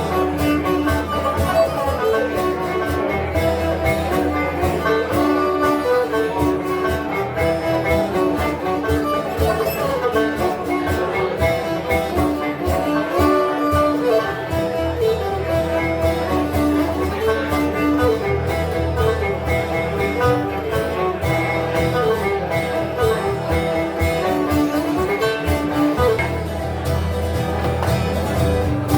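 Live acoustic band playing a tune on twelve-string guitar and banjo, plucked strings carrying a fast-moving melody over steady strumming.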